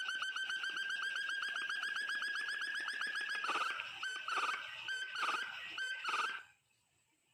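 Forest quail (puyuh rimba) calling: a fast, even run of high piping notes, about nine a second, rising slightly in pitch. It then breaks into four louder, harsher, spaced-out notes and stops abruptly a little after six seconds in.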